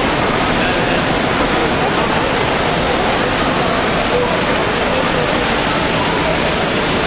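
Steady rushing of falling water from an indoor waterfall or fountain, with a faint murmur of people's voices underneath.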